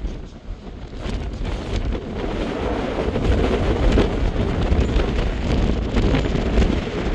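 Wind buffeting the microphone: a gusty rumbling rush, stronger from about three seconds in.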